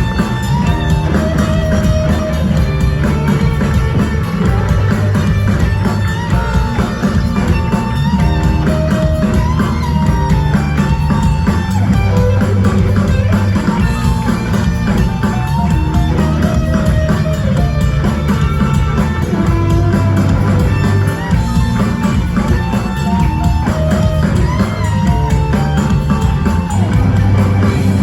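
Rock band music, with electric guitars and a drum kit playing continuously at an even, loud level.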